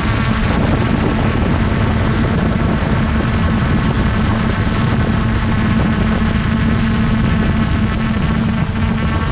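Quadcopter drone's motors and propellers buzzing steadily in flight, heard from the onboard camera's microphone.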